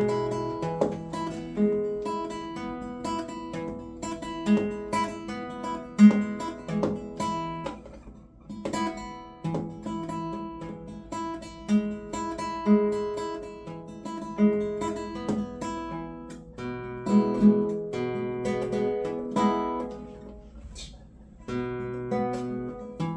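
Guitar being played, a mix of picked single notes and chords. The player has essential tremor and is playing as a test of his hand steadiness under deep brain stimulation.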